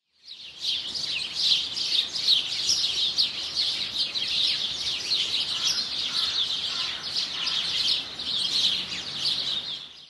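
A dense chorus of small songbirds chirping and twittering without a break, high-pitched. It starts just after the beginning and stops near the end.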